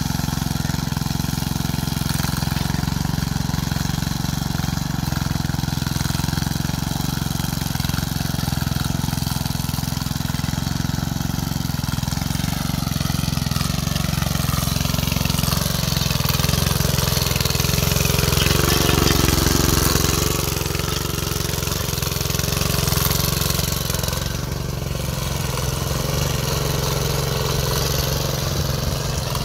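Small engine of a walk-behind rotary tiller running steadily as it churns through soil. Its note shifts in pitch a little before the middle and grows louder for a couple of seconds after.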